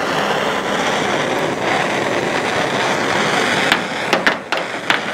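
Handheld gas torch burning with a steady hiss while heating the butyl tape that holds a rear window glass in. A few sharp clicks or knocks come near the end.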